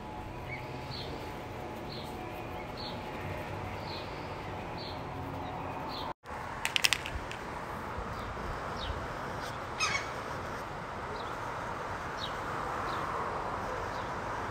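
Posca paint marker tip rubbing and dabbing on sketchbook paper: a steady scratchy rubbing, with short high chirps about once a second and a few sharp clicks.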